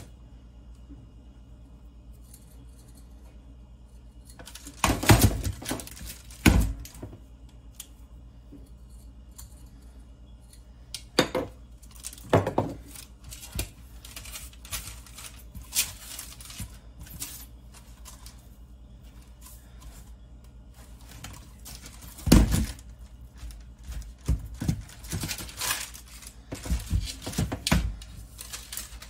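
Scattered rustles and knocks of parchment paper and a metal baking sheet as hands rub olive oil over butternut squash halves and turn them over, with a busier patch about five seconds in and another in the last third, over a low steady hum.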